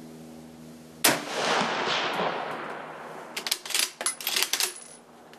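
A single shot from a Mosin-Nagant rifle in 7.62×54R about a second in, its report echoing and dying away over roughly two seconds. Then the bolt is worked, a quick run of sharp metallic clacks.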